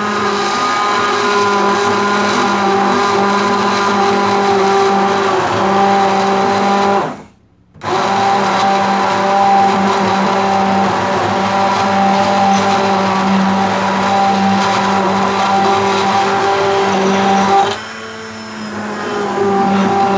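Hand-held immersion blender running in a pot of vegetable soup, puréeing it into a smooth cream with a steady motor hum. It cuts out for a moment about seven seconds in and dips again briefly near the end before running on.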